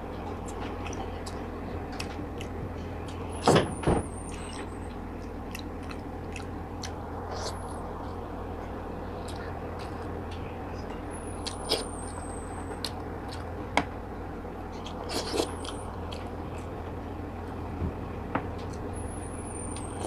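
Close-miked mouth sounds of eating steamed tilapia and rice by hand: wet clicks and smacks while chewing. The loudest is a pair of sharp clicks about three and a half seconds in, and the whole runs over a steady low hum.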